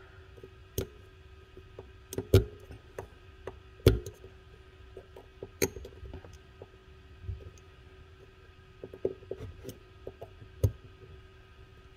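Scattered small clicks and knocks of a screwdriver against a motorcycle brake master cylinder as its piston is held in and the retaining lock is worked into its groove. The two loudest knocks come about two and a half and four seconds in, over a faint steady hum.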